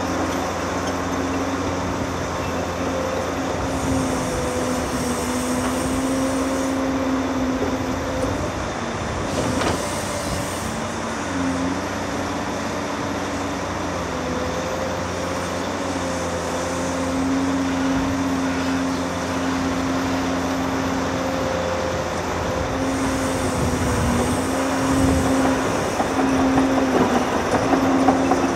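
Heavy Caterpillar earthmoving machinery working: a 390D excavator loading 773D dump trucks, their diesel engines and hydraulics running with a steady hum whose pitch shifts up and down. It grows louder and rougher near the end.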